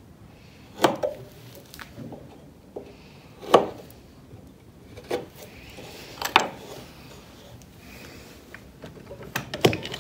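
Carving knife whittling a small piece of wood clamped in a bench vise: about five sharp cutting strokes a second or two apart, with softer scraping of the blade between them.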